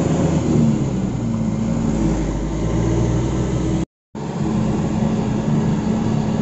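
Truck engine running steadily while driving, heard from inside the cab as a low drone with a deep rumble. The sound cuts out completely for a moment about four seconds in.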